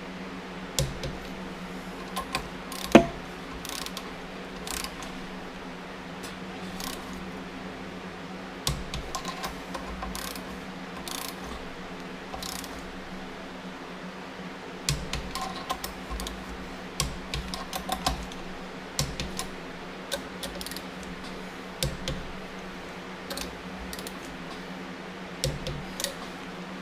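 Hand tools and metal engine parts clicking and clanking during bench assembly of a Continental F162 engine: scattered light clicks, with one sharp clank about three seconds in, over a steady low hum.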